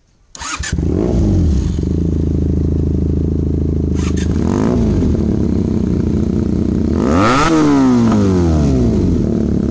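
Benelli TNT 300's parallel-twin engine breathing through an SC Project S1 exhaust, idling and blipped on the throttle. There are two short revs, about a second in and again midway, then a bigger rev near the end that rises and falls back to idle.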